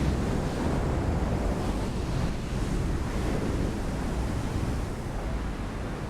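Air rushing past a skydiver, buffeting the microphone: a steady, heavy wind noise with a deep rumble, easing slightly near the end.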